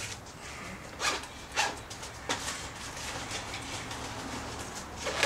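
Handling noise from a Think Tank rolling camera bag: three short rustles and bumps in the first half as the bag is moved, over a low steady hum.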